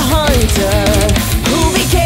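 Rock song playing: a wavering melody line over a heavy, steady low end.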